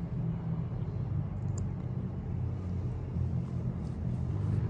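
Steady low drone of a car's engine and road noise while it is being driven.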